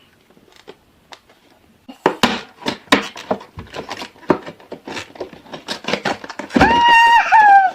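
Toy packaging being handled and pulled open: irregular clicks, knocks and rustling. Near the end a loud, high held tone lasts about a second, dipping in pitch before it stops.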